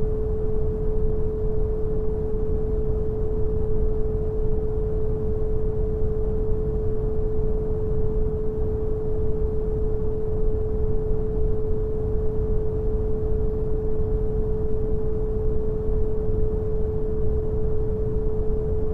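Brown noise, a steady deep rushing hiss strongest in the bass, with a pure 432 Hz sine tone held unbroken on top of it. Both are unchanging throughout.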